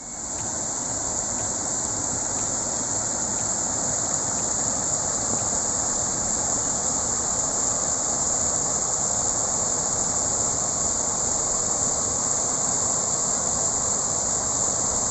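Small mountain-river waterfall spilling over a rock ledge into a pool: a steady, even rush and hiss of falling water.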